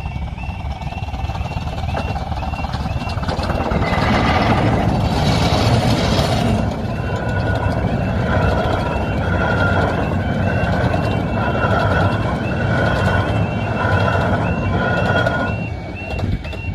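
Level crossing alarm warbling continuously at about three to four notes a second. A 15-inch-gauge miniature steam train of the Romney, Hythe & Dymchurch Railway passes over the crossing: the locomotive comes through with a rushing burst about four seconds in, then its coaches rumble past with a regular rhythm and fade out near the end.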